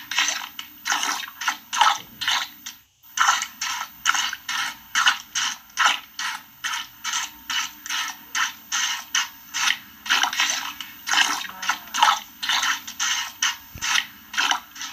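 A cow being milked by hand: rhythmic hissing squirts of milk into a bucket, about two to three strokes a second, with a brief break about three seconds in.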